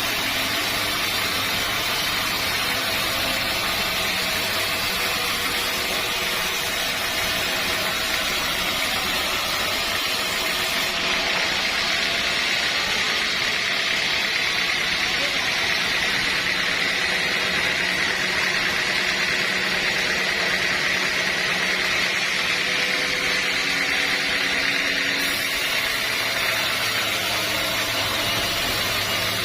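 Sawmill saw running steadily through teak wood, a continuous loud mechanical noise with a high-pitched whine that grows stronger through the middle.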